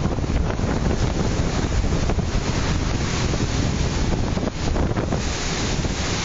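Strong typhoon wind gusting and buffeting the microphone, a dense, uneven rush with heavy low rumble, with a stronger gust about five seconds in.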